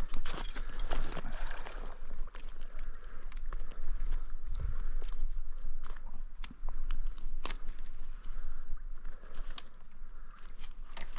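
Irregular clicks and crunching of close handling noise as hands work a trout in a landing net, over a steady low rumble.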